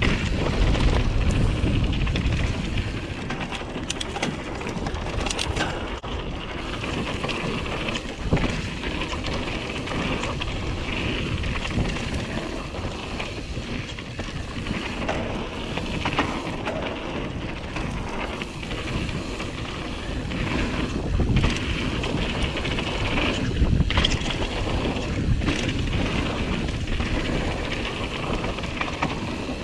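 Wind buffeting the microphone over the tyres of a Canyon Torque mountain bike rolling fast down a dirt singletrack. Short knocks and rattles from the bike hitting bumps and roots come now and then.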